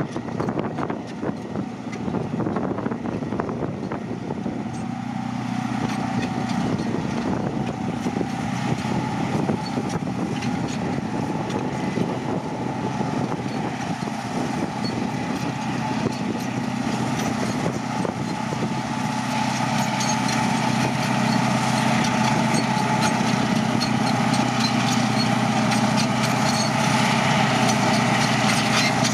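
Caterpillar D9N bulldozer's V8 diesel engine running steadily under a dense metallic clatter, growing gradually louder.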